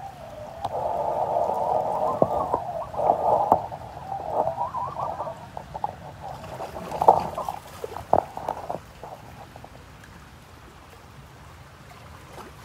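Water splashing and gurgling, loudest through the first few seconds, with a few sharp knocks about seven to eight seconds in, then settling to a quieter wash.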